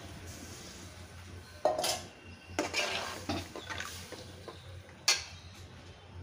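Metal ladle stirring freshly added tamarind water through fried onions and tomatoes in a metal cooking pot, scraping and clinking against the pot several times, the sharpest clink about five seconds in. A low steady hum runs underneath.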